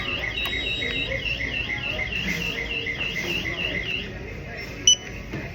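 Card payment terminal beeping in a rapid run of short chirps, about four a second, that stops about four seconds in. A single sharp click follows near the end.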